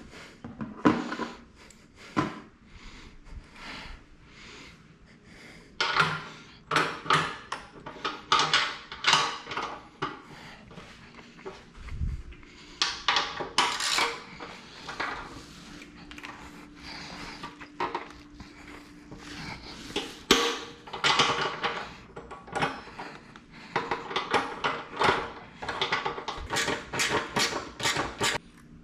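Hand tools clicking and clattering on metal in repeated quick bursts as parts are unbolted from a motorcycle.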